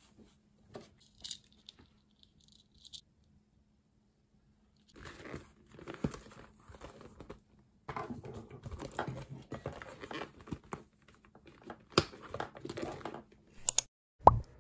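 Rustling and crinkling as a newly bought scrunchie and then a bag are handled. It comes in scattered bursts, stops for a couple of seconds, then turns into dense handling noise, with a few sharp clicks and a short knock near the end.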